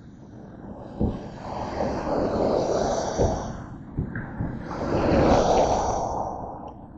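Tyres hissing on a rain-wet road, swelling and fading twice as traffic goes by, with a few dull thumps.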